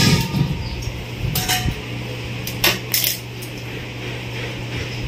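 Metal clinks and clicks of an LPG gas regulator and a Wintide safety device being handled and fitted together. A few sharp metallic taps come about a second and a half in and again around three seconds in, one with a short ring.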